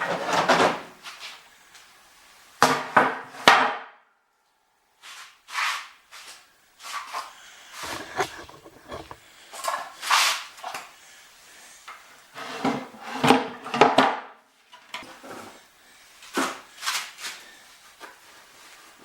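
Irregular clanks, rattles and knocks of hard metal and wooden pieces being handled and set down, in about a dozen separate bursts, one ringing briefly about four seconds in.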